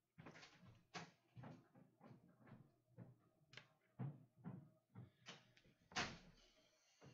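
A door being opened and shut, with a string of faint, irregular knocks and shuffles. The loudest is a sharp knock about six seconds in, followed by a brief ringing.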